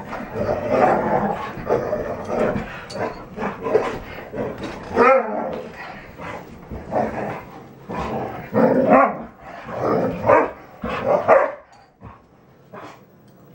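Red standard poodles play-fighting: growls and barks in irregular bursts, going quieter in the last couple of seconds.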